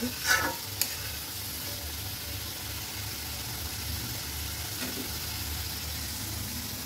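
Spiced curry gravy with potato pieces sizzling steadily in a black iron karahi as the masala is fried down. A spatula scrapes and clicks against the pan a couple of times in the first second.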